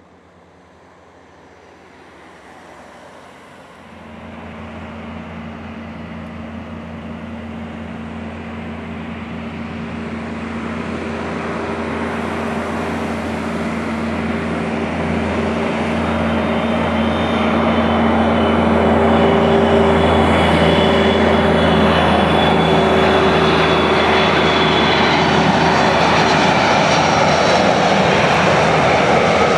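Airbus A330 airliner on final approach, its twin turbofan engines growing steadily louder as it nears, a deep hum and a high whine over the roar. The sound levels off loud about two-thirds of the way through.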